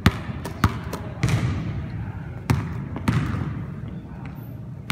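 A basketball being dribbled by a small child on a hardwood gym floor: about five uneven bounces, each echoing in the hall.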